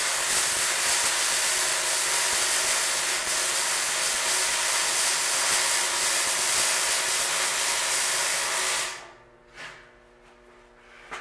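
Arc welding a bead along a steel tank's patch seam: a steady crackling hiss that cuts off sharply about nine seconds in as the arc is broken.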